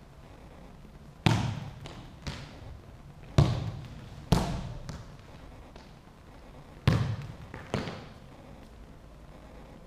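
A football being kicked and bouncing on a sports-hall floor: about six sharp thuds, each ringing on in a long echo off the hall's hard walls.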